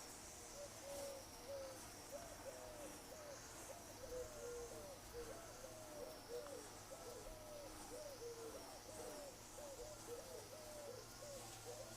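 Honeybees buzzing around an open top bar hive: many short, rising-and-falling hums as individual bees fly past, overlapping, with a faint steady hiss behind.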